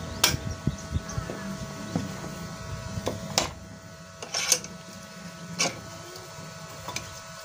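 Socket wrench and pipe wrench clinking and knocking on a water pump motor's shaft as the impeller is unscrewed. Irregular sharp metallic clicks, a handful spaced about a second apart.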